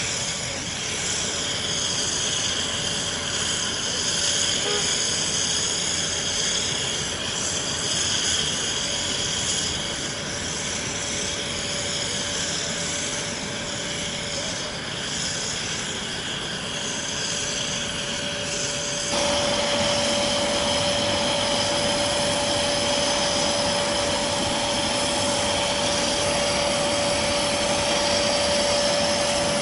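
Military transport aircraft engines running: a steady rushing noise with a steady whine. It cuts abruptly about two-thirds of the way through to a slightly louder stretch where the whine is stronger.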